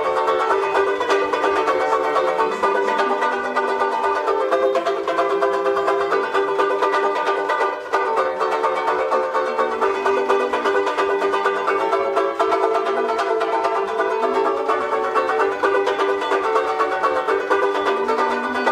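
Banjolele (banjo ukulele) strummed fast and steadily in a solo instrumental break, with no singing.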